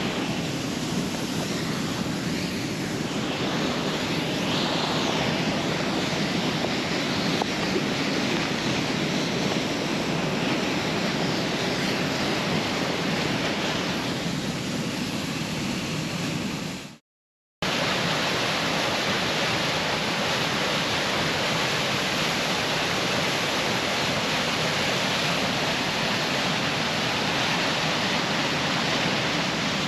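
Steady rushing roar of a large waterfall on a creek, falling water running continuously. It cuts out completely for about half a second roughly seventeen seconds in, then carries on the same.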